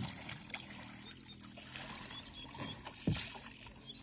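Double-bladed kayak paddle dipping and pulling through calm water, with light splashes and water dripping off the lifted blade. Two louder low thumps come at the start and about three seconds in.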